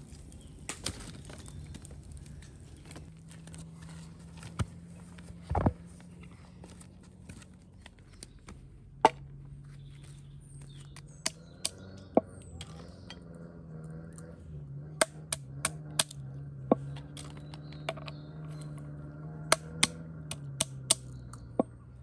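Walnuts being cracked open on a wooden board: a string of sharp single cracks in the second half, over a steady low hum. Earlier come scattered knocks and snaps of dry sticks being handled for a fire.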